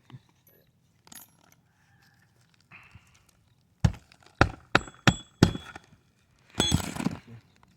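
Brittle asphalt roof shingles being worked loose: about five sharp knocks, some with a light metallic ring, about half a second apart, then a short rasping scrape near the end.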